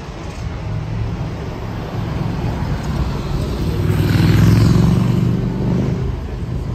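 Street traffic, with a motor vehicle passing close. Its engine swells to a peak a little past halfway, then fades.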